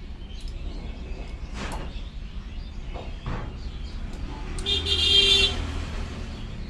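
Low rumble of passing road traffic, with a vehicle horn sounding for about a second near the end, the loudest sound here. Two short knocks come earlier.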